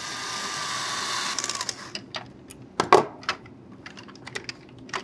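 Small electric screwdriver spinning up and driving a screw into the blaster's top rail, running steadily for under two seconds before winding down. A few light clicks and taps of plastic parts and screws being handled follow.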